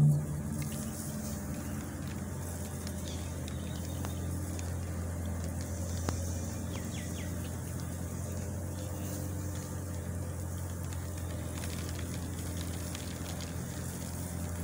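Steady low hum of distant road traffic, with a faint sharp tick about six seconds in.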